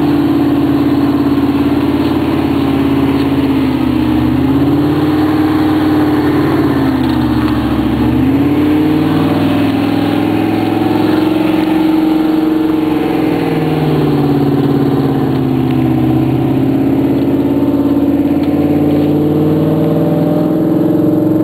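BMW V8 engine in a Mercedes G-class running hard under load as the truck churns through deep mud. The revs rise and fall, sagging twice in the first half.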